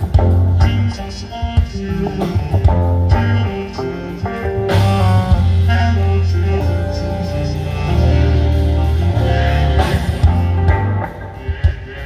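A live band playing: electric bass, drum kit, keyboards and electric guitar, with sustained bass notes and cymbal crashes about five seconds in and again near ten seconds.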